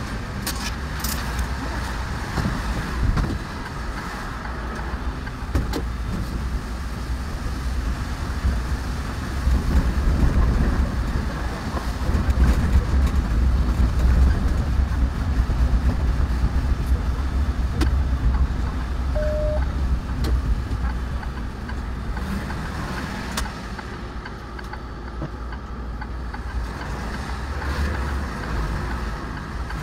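City bus running through traffic, heard from inside: a steady low engine and road rumble that grows louder for a stretch in the middle and eases again toward the end.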